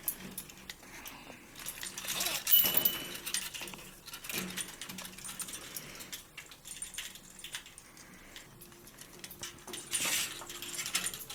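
A Cape parrot chewing and tearing at a wood and leather chew toy: scattered clicks, cracks and rattles of the toy's pieces, with louder bouts of crunching about two seconds in and again near the end.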